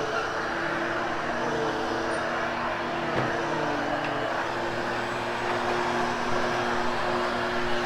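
Hoover HushTone vacuum cleaner running steadily as it vacuums and grooms freshly cleaned carpet, a constant motor hum over a rushing airflow, the hum shifting slightly in pitch about four seconds in.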